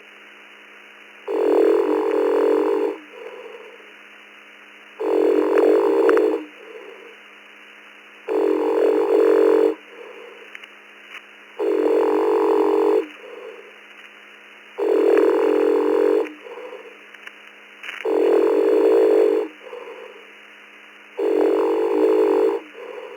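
A sleeping man's snoring, picked up by a VOX-keyed microphone and heard over an amateur radio link. There are seven snores, one about every three seconds, each lasting about a second and a half, with the thin, cut-off sound of a radio voice channel. The operator fell asleep with VOX enabled, so every snore goes out on the air.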